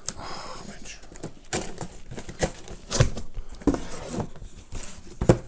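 Cardboard packaging being handled: the soundbar's box flaps and inserts bent and the box knocked and shifted, giving a string of irregular knocks over light rustling.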